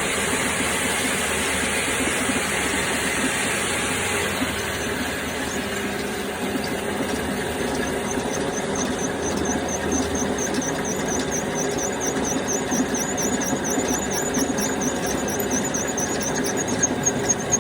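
Drill press running and drilling a hole, a steady machine noise with a high squeal. From about eight seconds in, a high chirp repeats rapidly, about four times a second.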